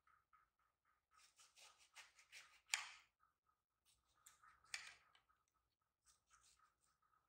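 Knife cutting and scraping through the thick peel of a grapefruit: a run of short scratchy strokes, the loudest about three seconds in and another near five seconds, over a faint steady high tone.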